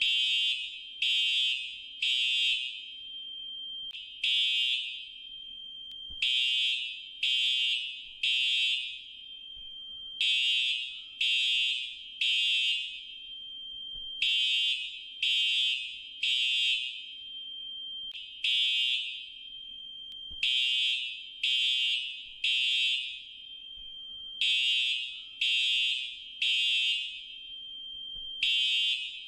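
Fire alarm sounding a high-pitched beep in repeating groups of three, about one beep a second, with a short pause after each group. This is the temporal-three evacuation signal.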